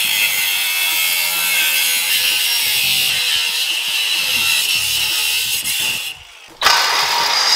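Handheld power tool with an abrasive cutoff wheel cutting through steel chassis tubing, a steady high-pitched grinding hiss. It stops briefly about six seconds in, then starts again.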